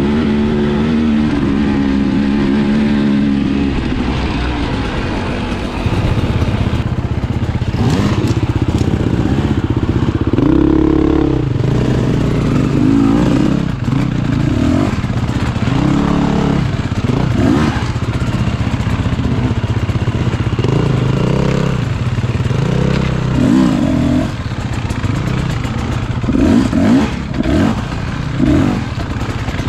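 Enduro dirt bike engine, running at a steady note for the first few seconds, then revving up and down again and again as the throttle is worked, with clattering knocks from the bike over rough ground.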